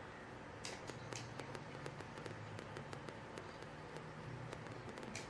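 Computer mouse clicking over and over, several clicks a second at an irregular pace, while the clone stamp brush is worked across the image, over a faint steady low hum.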